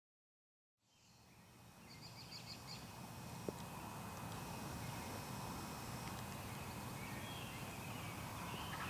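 Outdoor ambience fading in about a second in: a steady hiss of background noise with faint songbird chirps, and a single click near the middle.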